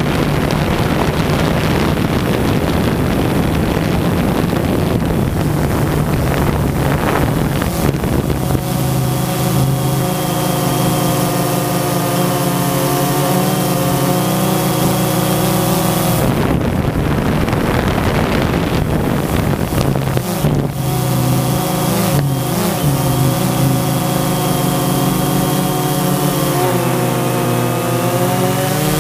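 Drone motors and propellers running, heard from the onboard camera with heavy wind noise on the microphone. A whine of several stacked pitches rises and falls as the motors change speed, giving way to mostly wind rush for a few seconds in the middle.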